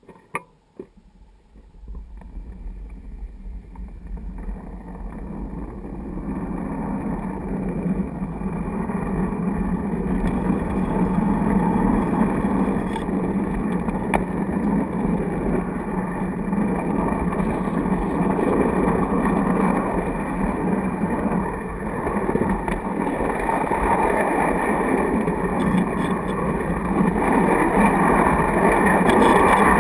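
Wheels of a large-scale garden-railway model passenger car rolling on the track, heard from inside the car. A few sharp clicks come right at the start as the train moves off. The rumble then builds over the first ten seconds or so as the train gathers speed, and runs steadily after that.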